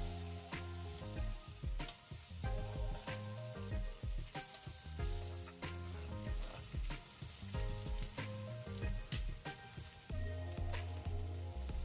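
Onions and mint leaves sizzling in hot oil in an aluminium kadai as they are sautéed, stirred with a steel spoon, under background music with a stepping bass line.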